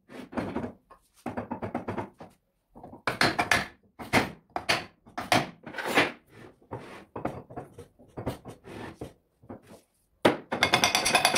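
Irregular knocks of blows struck through a white plastic drift onto the shaft and hub of a Multilith 1250 compressor, driving the part into place during assembly, with a quick run of rapid taps near the end.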